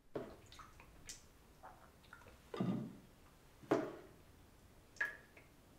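Hands handling rice cake dough in a terracotta bowl: about five separate soft knocks and clicks, the loudest two just past the middle. The extruder motor is not running.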